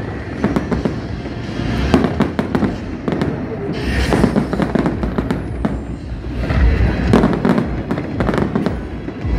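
Aerial fireworks shells bursting in quick succession: many sharp bangs and crackles over a low rumble, loudest about two seconds in and again near seven seconds.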